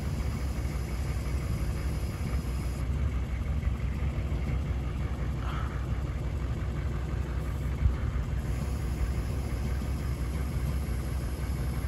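Bucket truck's engine running steadily with its PTO engaged, driving the hydraulics as the boom extends upward: a constant low rumble, with one brief knock about two-thirds through.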